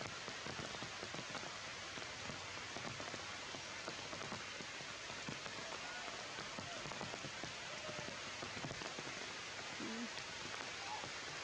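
Heavy rain falling steadily on tree foliage: a dense, even patter of many small drop hits.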